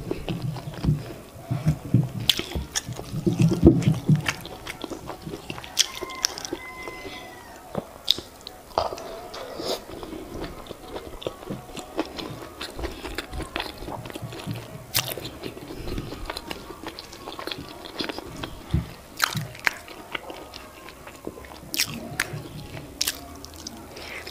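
Close-miked chewing and mouth sounds of someone eating soft boiled yam with eggplant sauce by hand: wet clicks and smacks throughout, heaviest in the first four seconds.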